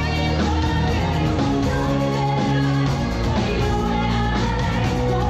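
Live band music: female singers over drums, bass and guitar, playing steadily.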